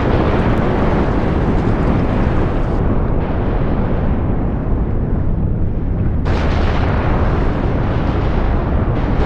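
Volcanic eruption: a loud, continuous low rumble and roar. Its character changes abruptly about three seconds in and again about six seconds in.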